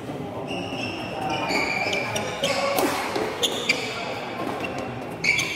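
Badminton rally: court shoes squeaking in short high bursts on the hall floor, with sharp racket strikes on the shuttlecock, over background chatter from people in the hall.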